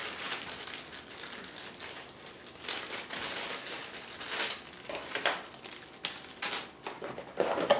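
Camera accessories and their packaging being handled as they are taken out of a box: irregular rustling with scattered clicks and taps.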